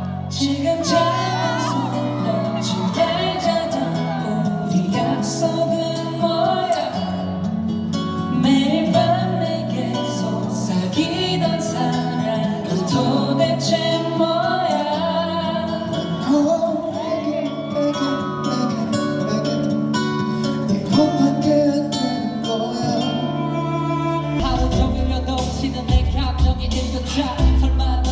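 K-pop boy band singing a slow song live into handheld microphones over a backing track of sustained low notes. Near the end a heavy bass beat comes in.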